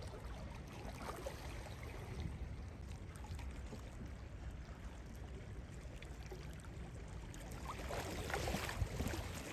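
Small sea waves lapping and splashing against rocks at the shoreline, a little louder near the end.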